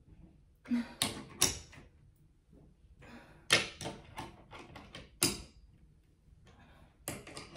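Sharp clicks and knocks in irregular bunches from a hand tool working the lag screws of a pull-up bar's steel wall brackets, as the screws are tightened.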